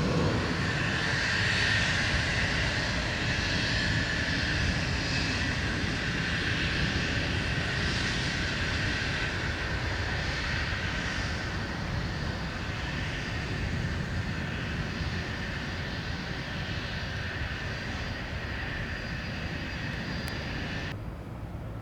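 Cessna Citation CJ2 business jet's twin turbofan engines at takeoff power: a steady rushing roar with a whine, loudest at the start and slowly fading as the jet moves away. About a second before the end the hiss cuts off abruptly.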